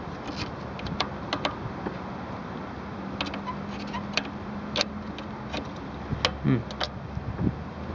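Hand wrench working loose the bolt on a fuel pressure regulator: scattered, irregular metallic clicks and clinks of the tool on the fitting. A brief voice sound about six and a half seconds in.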